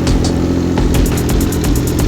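MV Agusta Brutale 800RR's three-cylinder engine idling steadily.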